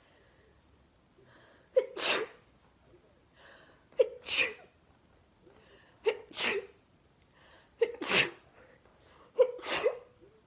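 A woman sneezing repeatedly in a sneezing fit: five sneezes about two seconds apart. Each begins with a short in-breath and a sharp catch before the main burst.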